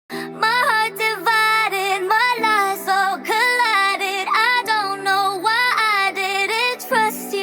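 Song intro: a female voice sings a wordless melody with vibrato over sustained chords that change about every two and a half seconds.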